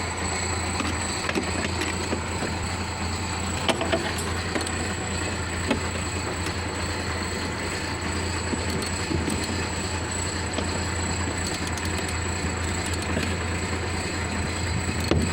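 Isuzu pickup's engine idling steadily, with a few faint clicks over the running sound.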